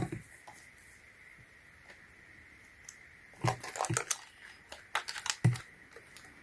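Small batteries and meter probes being handled on a hard surface: a sharp click at the start, then two short runs of light clicks and rattles in the second half.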